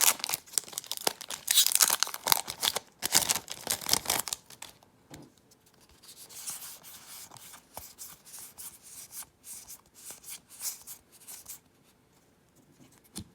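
A Magic: The Gathering booster pack's foil wrapper being torn open and crinkled, loud for the first four seconds or so. After that come quieter rustles and light clicks as the cards are handled.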